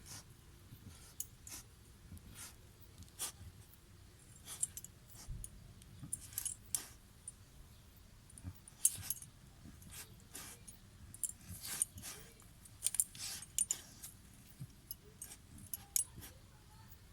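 A pet digging and scratching: irregular crisp scratches and rustles, sometimes several in quick succession.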